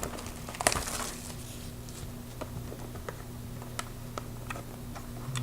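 Hands working at the packaging of a sealed trading-card box: scattered small clicks and crinkles, the sharpest about a second in, over a steady low hum.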